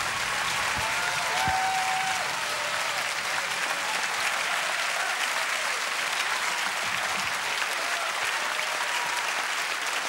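Large theatre audience applauding steadily, with a few scattered cheering voices from the crowd.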